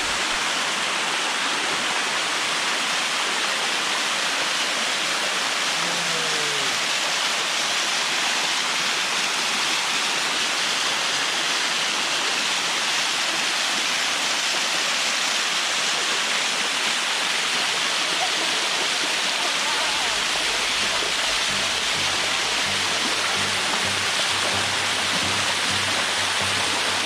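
Waterfall water rushing over rock with a steady, even roar. About three quarters of the way through, background music with a steady low beat comes in underneath.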